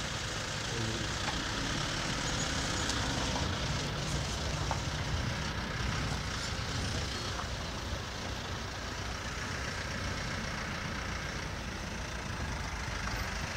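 Safari jeep engine idling steadily nearby, a continuous low rumble with a constant hiss above it.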